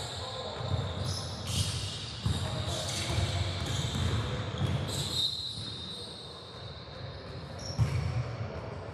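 Basketball being dribbled on a hardwood gym floor during play, irregular thuds, with a short high squeak about five seconds in.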